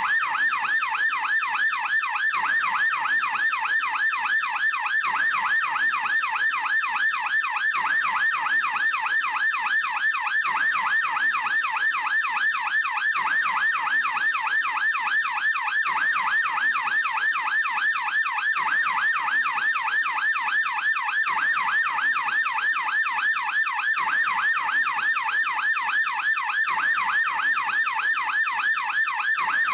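Swiss police car siren in fast yelp mode: a rapid, unbroken rise and fall of pitch, several sweeps a second, at an even level.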